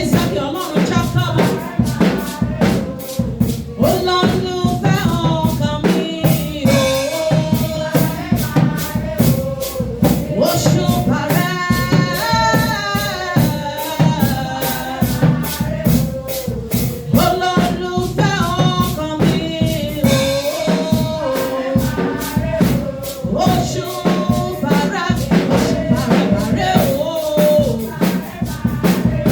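Worship song: a singing voice with a wavering melody over a fast, steady percussion beat.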